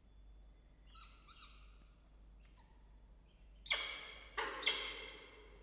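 Peregrine falcons calling in a nest box: faint thin chirps about a second in, then three loud, harsh calls in quick succession near the end.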